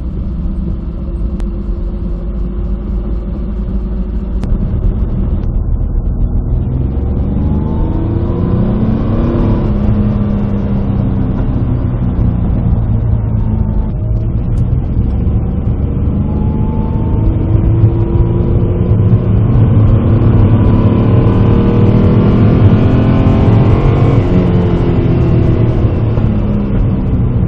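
Alfa Romeo Busso 3.0-litre V6 in a Lancia Stratos replica, driving on the road: the engine note rises under acceleration about a third of the way in and again, louder, past the middle, then eases off between pulls.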